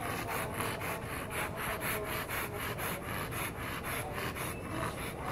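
American Bully dog panting rapidly, about four quick breaths a second in an even rhythm.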